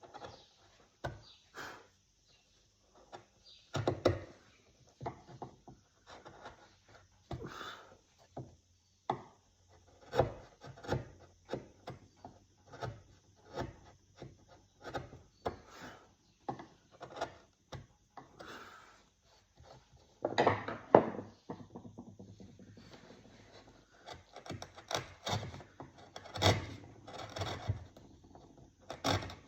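A hand tool scraping and cutting into wood as a piece is carved by hand, in irregular short strokes with a louder, longer stretch of cutting about twenty seconds in.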